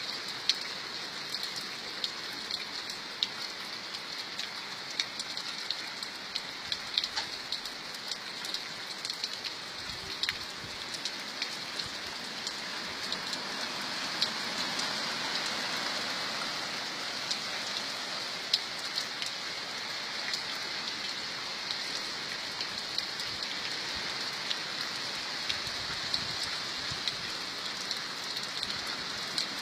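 Rain falling steadily, with many individual drops ticking sharply on a surface over the even hiss of the downpour. It grows a little heavier about halfway through.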